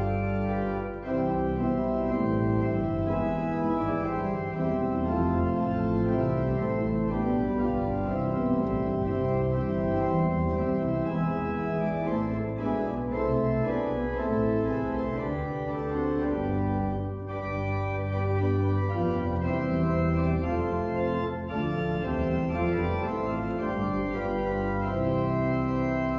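Church pipe organ played from a three-manual console: slow, held chords that change every second or two.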